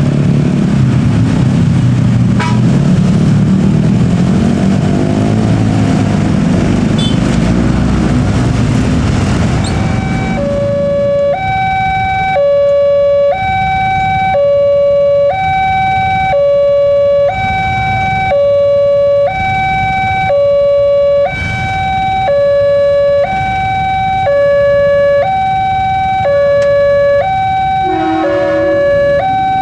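Road traffic, a bus and motorcycles, passes over the crossing for the first ten seconds or so. Then the level-crossing warning alarm starts: an electronic two-tone signal alternating between a lower and a higher tone about once a second, warning of an approaching train.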